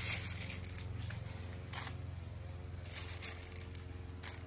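Thin plastic bag crinkling in several short rustles as hands handle it on a dial weighing scale, over a steady low hum.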